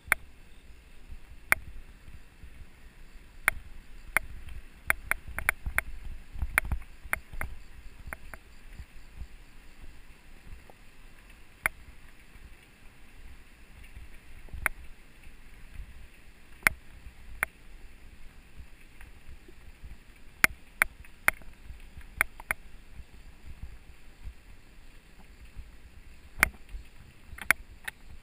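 Mountain bike rolling over a rough, stony dirt trail: a steady low rumble from the tyres, broken by irregular sharp clicks and knocks as the bike jolts over stones.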